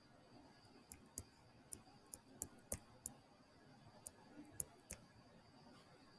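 About ten sharp, irregular taps and clicks of a stylus on a touchscreen during handwriting, coming between about one and five seconds in. A faint steady high whine sits underneath.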